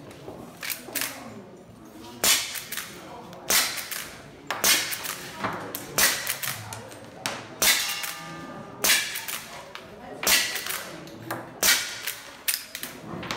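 A CO2 lever-action rifle fired about ten times at a steady pace, roughly one shot a second, against round steel plate targets that clang when hit. One hit about eight seconds in leaves a plate ringing briefly.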